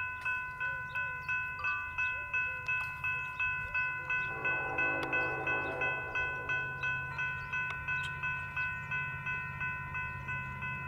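Railroad grade-crossing signal bell ringing steadily, about three strokes a second, over the low rumble of the approaching Union Pacific freight train's diesel locomotives working under load.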